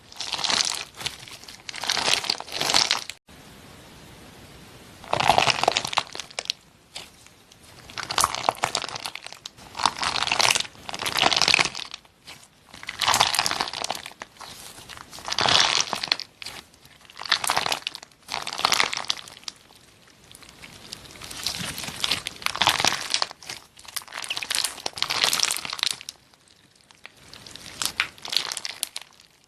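Slime being squeezed and pressed, giving a run of crackling, crunchy bursts every second or two.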